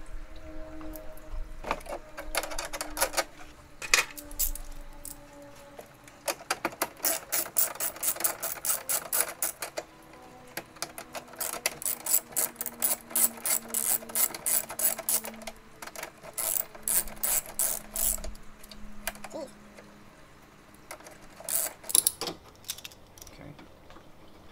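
Hand socket ratchet with an extension clicking in several quick runs as it backs out the bolts that hold a BMW E46 M3 taillight.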